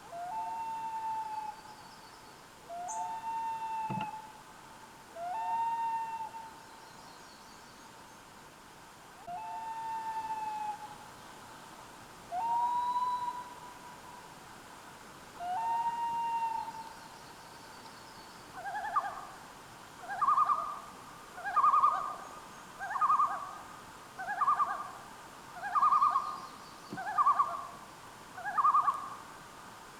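Common loon calling: long drawn-out notes, each sliding up at the start, repeated every two to three seconds, then, about two-thirds of the way in, a louder, quicker run of repeated wavering two-part phrases. Faint songbird chirps sound higher up.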